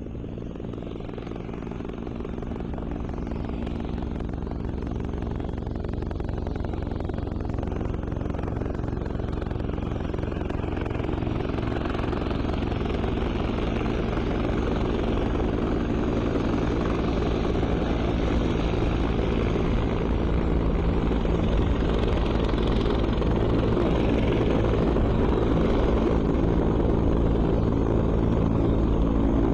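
Steady drone of a distant engine with an even pitched hum, growing gradually louder.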